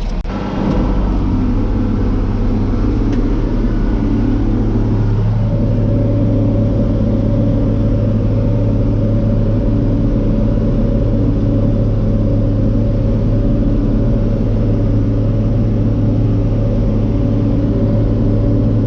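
Tractor engine running steadily under load while pulling a round baler, heard from inside the cab. The engine comes up about half a second in, and its tone shifts slightly about five seconds in.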